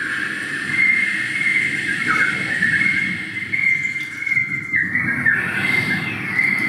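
Live amplified beatboxing by a group of performers on microphones: a sustained high whistle-like vocal tone that swoops down briefly a few times, over a low rumbling vocal noise.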